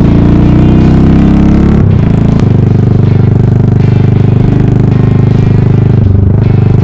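Yamaha SR400's air-cooled single-cylinder engine through a full megaphone exhaust, running loud: the revs climb for about two seconds, there is a brief break, then it holds a steady pitch.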